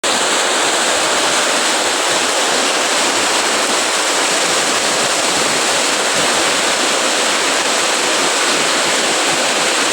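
Heavy tropical rain falling in a steady, dense hiss.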